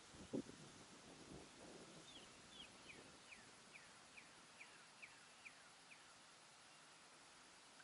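Faint bird song: a run of about ten short whistled notes, each sliding down in pitch, evenly spaced at roughly two a second, over a quiet outdoor background. A soft low thump comes near the start.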